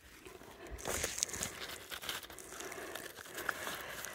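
Faint crinkling and rustling with a few small clicks, as hands handle a trail camera and its batteries.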